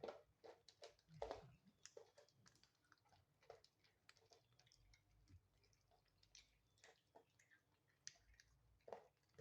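Cats eating cat food, heard as faint, irregular clicking chews.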